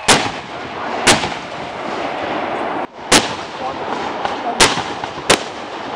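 Aerial fireworks shells bursting overhead: five sharp bangs at uneven intervals, about a second in, near three seconds, and two close together near the end, over a steady hiss.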